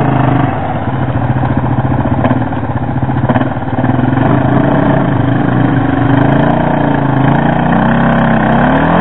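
Quad (ATV) engines running under load while one quad tows another through deep mud; the engine note shifts several times and rises near the end as the throttle is opened.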